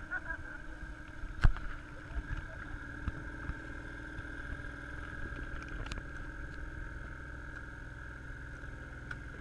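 An engine running steadily, with one sharp knock about one and a half seconds in and a few fainter knocks after it.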